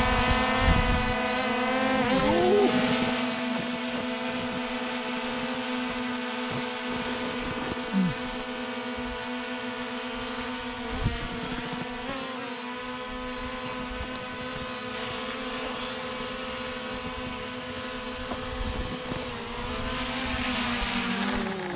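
Small folding quadcopter drone hovering low, its propellers giving a steady, many-toned buzzing whine. Near the end the pitch drops as the motors slow for the landing.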